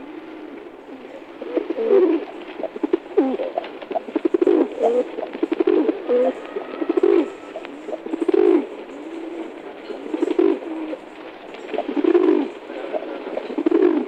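Domestic pigeons cooing over and over, low throaty coos every second or two, some sliding up and down in pitch.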